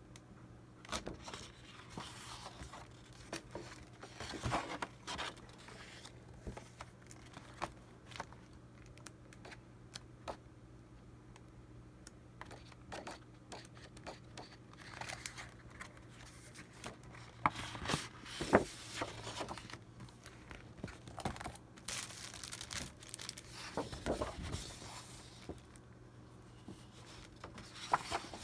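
Sheets of Prima Marketing patterned scrapbook paper being handled and flipped through: soft rustling and crinkling with light taps, the loudest swishes of pages turning coming past the middle.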